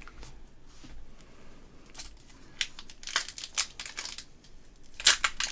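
Foil Pokémon booster-pack wrapper crinkling and tearing in short crackly bursts, loudest near the end.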